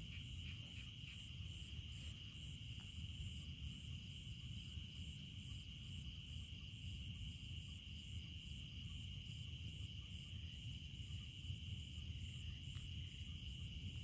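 Chorus of night insects: a steady high-pitched trilling with a second insect pulsing rapidly just above it, over a low steady rumble.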